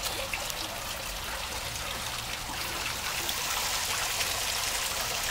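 Water trickling steadily along a small stream channel, growing slightly louder toward the end.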